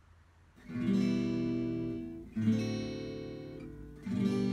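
Acoustic guitar music: three strummed chords, each left to ring and fade, the first coming in under a second in.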